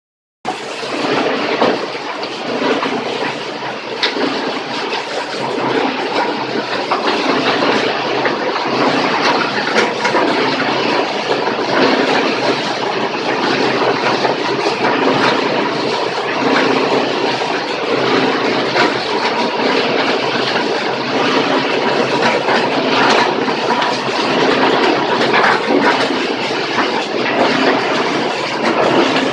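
Plastic crusher machine running and grinding hard HDPE plastic: a loud, steady clattering din with occasional sharper cracks. It starts about half a second in.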